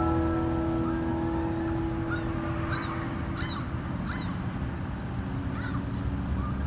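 A gull calling: a handful of short, arching cries, several in quick succession from about two seconds in, over a steady low rumble. The last notes of background music fade out in the first seconds.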